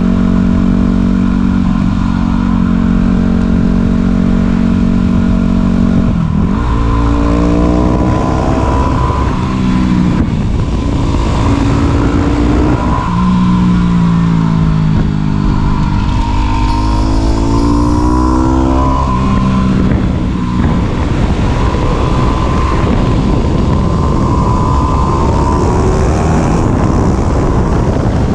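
Yamaha WR250 single-cylinder motorcycle engine under way, holding a steady pitch for the first few seconds, then revving up and dropping back several times through the gears. A loud rushing noise runs underneath throughout.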